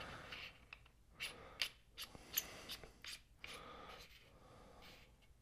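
Scattered light clicks and handling noises from an EVO GP-Pro handheld gimbal as batteries are fitted into it, with faint breaths between.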